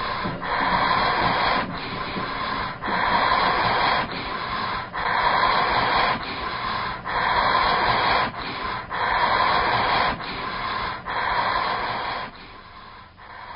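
Heavy, rhythmic breathing: a long loud rush of breath about every two seconds, alternating with a softer one, dropping away about twelve seconds in.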